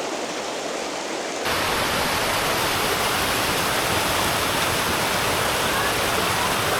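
Steady rush of a mountain creek's waterfalls and cascades. It jumps abruptly louder and fuller about a second and a half in, then holds steady.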